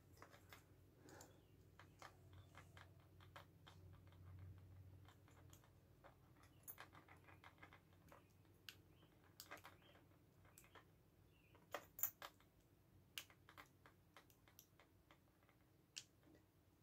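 Faint, scattered clicks and light scrapes of a metal hook pick working the pins of a lock held under a tension wrench, a little louder around twelve seconds in.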